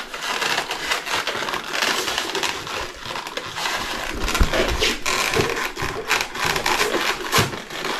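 White polystyrene foam end caps rubbing and crunching against each other and against a cardboard box as a speaker is pushed and twisted into the box, with a run of scratchy scrapes and small knocks.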